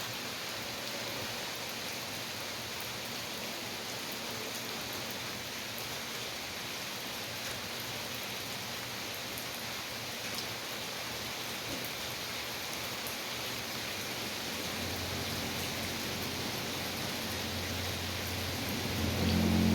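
Steady rain falling: an even hiss with scattered drop ticks. A low steady hum fades in over the last few seconds.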